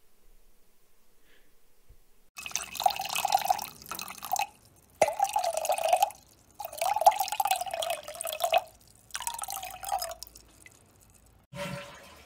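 Water running or splashing in four separate spurts, each a second or two long, starting about two seconds in.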